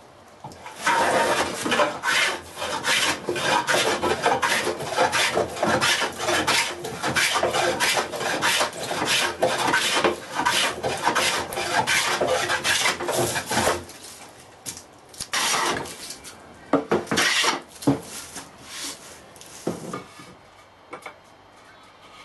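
Hand plane cutting a pine board: a quick run of back-and-forth strokes of the blade shaving the wood, then a pause and two or three single strokes after about 15 seconds.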